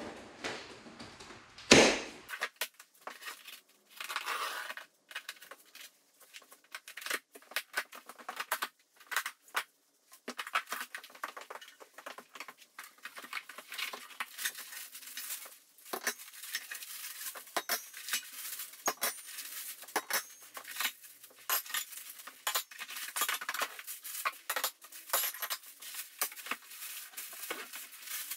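Unpacking a large cardboard shipping box: cardboard and packing material scraping and rustling, with irregular clicks and clinks of metal parts being handled and set down. A loud knock about two seconds in.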